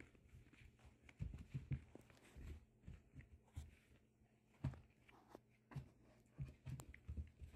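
Faint scuffling and soft, irregular thumps of six-week-old Pyredoodle puppies wrestling on a padded floor, with the light patter of their paws.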